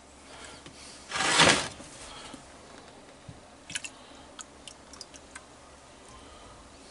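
Kitchen utensils being handled while dishing food out of a pot: a short scrape about a second in, then a few light clicks and taps.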